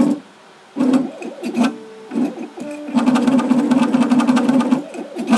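Diamond-tip engraving machine cutting into a pewter tankard: its motor buzzes in short stop-start bursts, then runs steadily for nearly two seconds about three seconds in, before pausing and starting again near the end.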